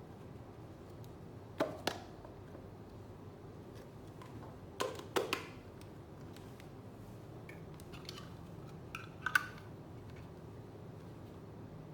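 Light clicks and knocks, in three short clusters of two or three, over faint steady room noise, as parts of a handheld cordless vacuum cleaner are handled.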